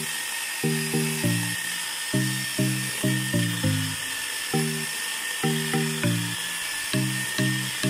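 Background music of short, repeated low notes in a steady rhythm, over the steady high whine of a corded electric chainsaw running as it cuts through a log.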